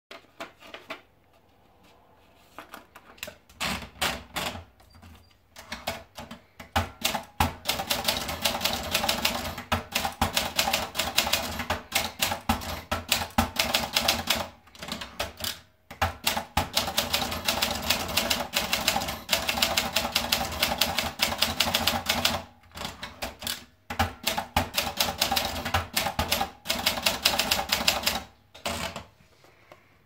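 Olympia SF Deluxe manual portable typewriter being typed on: rapid runs of sharp keystroke clacks as typebars strike the platen. The runs break off for short pauses twice, about halfway and about three quarters of the way through.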